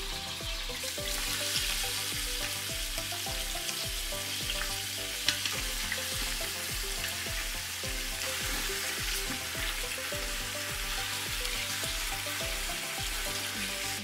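Raw chicken thighs sizzling in hot oil in a stainless steel Instant Pot inner pot on sauté as the pieces are laid in, a steady frying hiss with a few sharp clicks.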